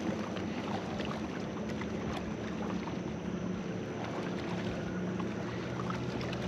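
Steady lakeshore background: wind on the microphone and water lapping at the rocky shore over a low steady hum, with a few faint clicks.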